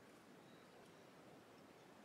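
Near silence: faint, steady background hiss.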